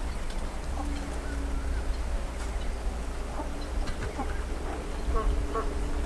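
Ducks quacking in short, scattered calls over a steady low rumble.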